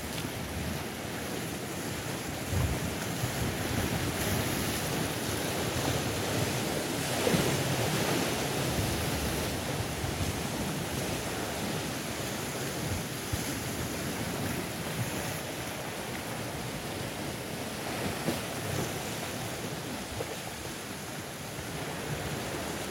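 Sea surf washing in over rocks in a rocky gorge: a steady wash of waves and foam, surging louder about seven seconds in and again near the end.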